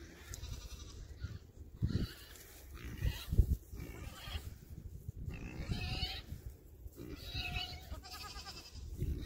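Nigerian dwarf goats bleating: several short, wavering calls, the clearest in the second half, over a few low thumps.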